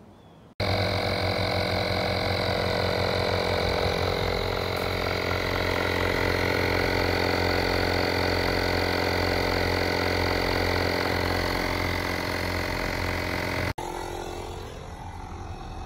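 A portable 12-volt tire inflator's compressor running at a steady pitch. It starts suddenly about half a second in and cuts off suddenly near the end, leaving a quieter hum.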